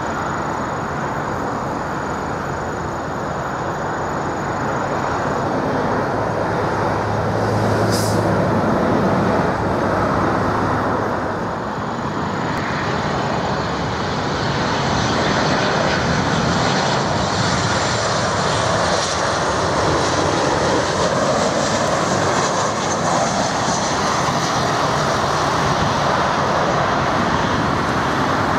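Boeing 737-800's CFM56-7B turbofan engines on landing approach: a steady jet rumble that grows a little louder past the halfway mark as the airliner nears, with a faint high whine in the second half. A brief sharp high click about eight seconds in.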